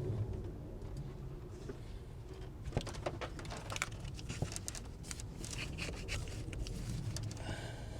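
Scattered clicks, clinks and rattles of hand tools being handled and rummaged through, busiest in the middle, over a low steady hum.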